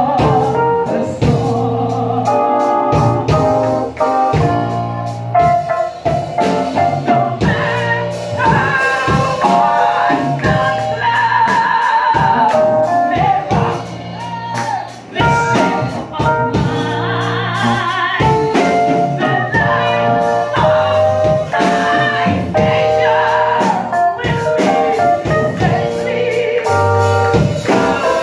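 A woman singing a gospel song into a handheld microphone.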